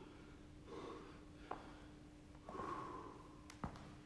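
Two faint, heavy breaths out, nearly two seconds apart: someone winded from exercise catching their breath. A couple of small clicks and a low steady hum sit underneath.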